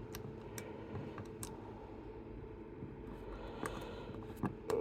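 Faint, scattered clicks of a small metal lock pick working the stuck levers of a mini Chubb detector lever lock off their spring, a few separate ticks over a few seconds.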